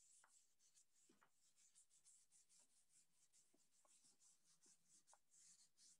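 Faint, quick rubbing: a hand rubbing a sheet of paper pressed onto a paint-covered canvas, about four strokes a second, to transfer the paint texture.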